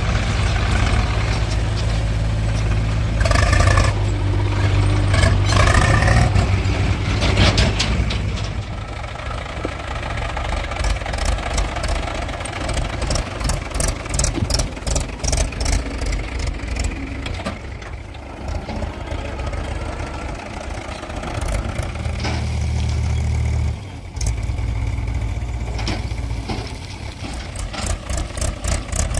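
Heavy diesel engines of a backhoe loader and tractors running, the engine note rising and falling several times as the machines work. In places it is overlaid by rapid rattling clicks and knocks.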